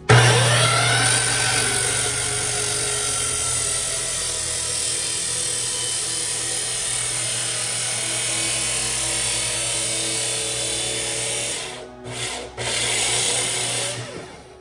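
DeWalt sliding miter saw spinning up and cutting through square steel tubing, a loud steady grinding whine of blade on metal. It drops off briefly about twelve seconds in, cuts again, then winds down near the end.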